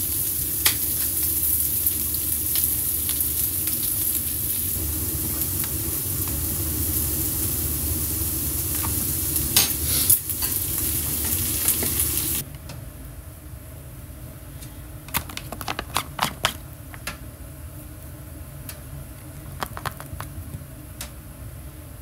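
Food sizzling in a frying pan with occasional utensil clicks, stopping abruptly a little over halfway through. A quieter stretch follows, with scattered light clicks and taps.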